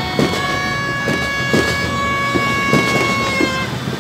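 Fireworks going off with irregular bangs, over several long horn blasts held at different steady pitches that overlap and mostly cut off shortly before the end.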